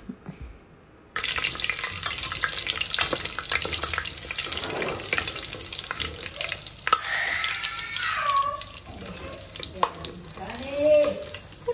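Whole spices (cinnamon, cloves, cardamom, bay leaves, peppercorns) sizzling in hot sunflower oil in an aluminium pressure cooker, stirred with a wooden spatula. A steady crackling sizzle starts about a second in.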